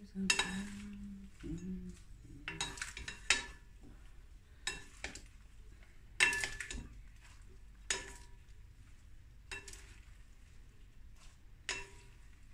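Wooden salad servers tossing leaves in a glass bowl, knocking against the glass in irregular clinks that ring briefly, every second or so.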